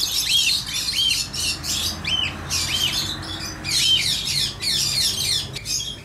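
Caged cockatiels calling: short rising-and-falling squawks, repeated many times over a dense high chatter of many cage birds.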